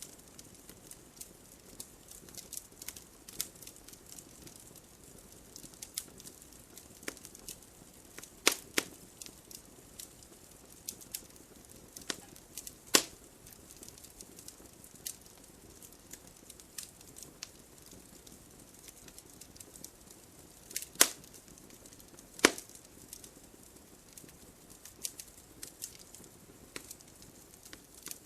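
Wood fire crackling: scattered small snaps and pops over a faint hiss, with a handful of louder sharp pops.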